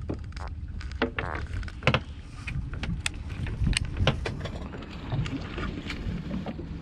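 Small boat at sea: a steady low rumble with wind on the microphone, and scattered sharp knocks and clicks.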